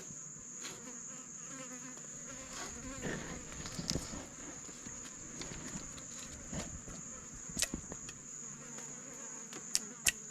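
Steady, high-pitched drone of forest insects, with a few faint clicks and knocks that come quicker near the end.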